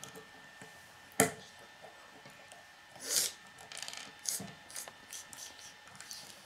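K'nex plastic pieces clicking and rattling as they are handled and snapped together on a wooden tabletop: a sharp snap about a second in, a short rattle about three seconds in, then a run of smaller clicks.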